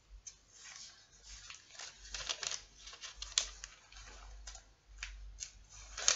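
Irregular soft rustling and clicking of hands at work, with a few sharper clicks, as a scripture passage is looked up.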